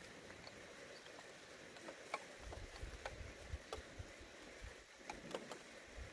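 Sparse raindrops falling, heard as faint scattered ticks and pats at irregular intervals, with a low intermittent rumble of wind on the microphone.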